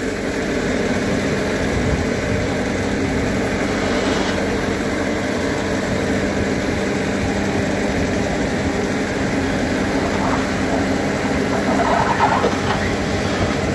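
Bobcat compact track loader's diesel engine running steadily as the machine drives its pallet forks under a heavy oak log and takes its weight.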